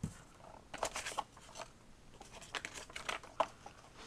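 Paper leaflets and a cardboard box rustling and crinkling as they are handled and lifted out, in short irregular bursts of rustles with small clicks.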